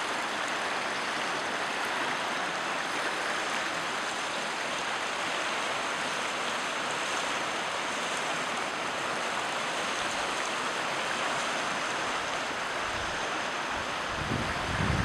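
Fast-flowing floodwater of the Salzach river running bank-high: a steady, even rush of water. A low rumble comes in near the end.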